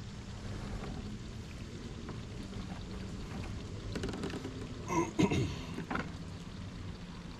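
Wet crab-trap rope being hauled up hand over hand against the side of a kayak, with water dripping and splashing off the line over a steady low wash. A few creaks and knocks, loudest about five seconds in, come from the rope rubbing on the hull.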